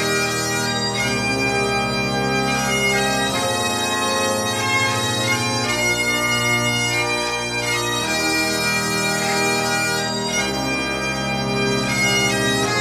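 Bagpipe music: a continuous melody of held notes over a steady drone.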